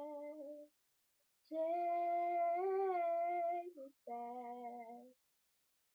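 A female voice singing an improvised song unaccompanied: slow, held notes on 'take me back, take me', with short silent pauses between the phrases.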